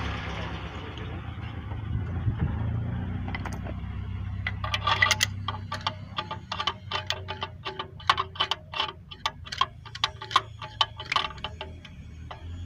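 Ratchet wrench clicking in short irregular runs, two or three clicks a second, as a spark plug is turned in its well on a Renault 1.4 petrol engine. The clicking starts about four seconds in, over a steady low hum.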